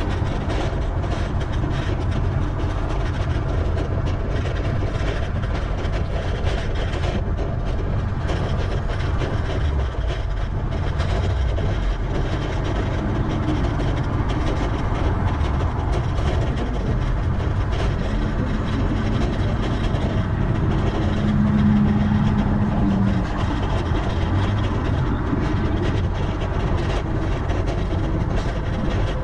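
Steady wind rumble and road noise on a camera riding along on a moving bicycle. A low steady hum joins in for a few seconds past the middle and is the loudest moment.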